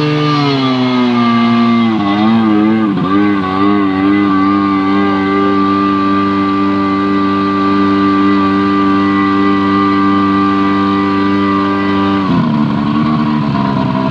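Tohatsu V50 fire pump engine running on test: its speed falls over the first couple of seconds and surges unevenly for a moment. It then runs at a steady speed and drops to a lower, rougher speed about two seconds before the end.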